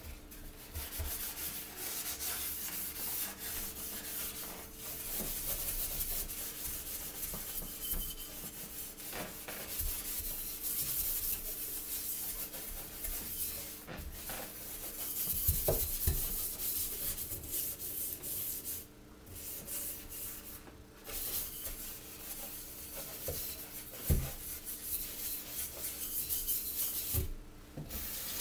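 Wire scrubbing pad scouring a stainless steel sink with continuous rasping strokes, pausing briefly a few times near the end.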